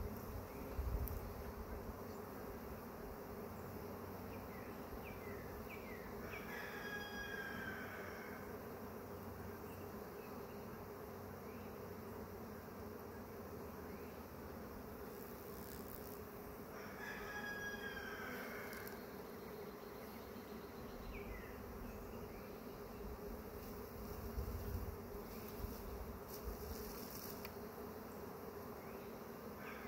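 Steady hum of a honeybee swarm flying around the hive as it is shaken from a branch into the box. A bird chirps briefly twice, near the middle and again at the end.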